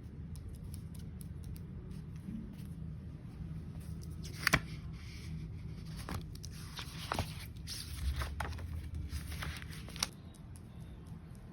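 A kitten batting at and scratching a document folder: scattered scrapes and rustles with a few sharp clicks, the loudest about four and a half seconds in.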